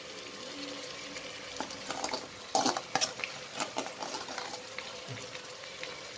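Sliced onions frying in oil in an aluminium pressure cooker, a steady sizzle. Around the middle a steel spoon clicks and scrapes several times against a steel bowl as ginger-garlic paste is scooped out.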